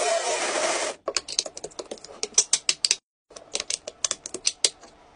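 A steady mechanical whir from the LEGO motorcycle test rig's powered roller bed cuts off about a second in. Then comes a rapid run of sharp plastic clicks and rattles as cylindrical battery cells are handled and pressed into a small plastic battery box, with a short break near the middle.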